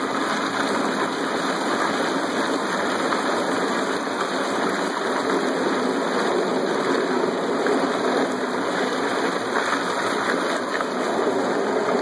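Homemade margarita machine running at full power: a 1¼-horsepower garbage disposal pumps the margarita and ice slush through a return pipe, so the mix churns and gushes steadily in a plastic cooler.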